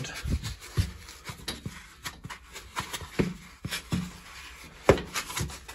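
Pipe lagging being handled and pushed onto pipework: irregular rubbing, creaking and light knocks, with one sharper knock about five seconds in.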